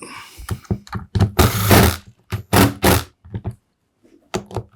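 Power driver running screws into an impact wrench's gearbox housing in short bursts, the longest about a second in and another near the three-second mark, with clicks and knocks of handling in between.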